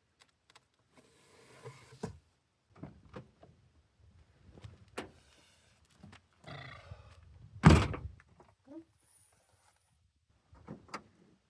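Rustling and scattered knocks of someone moving about in a parked car, with one loud thunk about eight seconds in.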